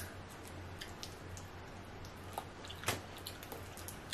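Boiled crawfish being peeled by hand: faint shell crackles and wet squishes, with a sharper crack about three seconds in.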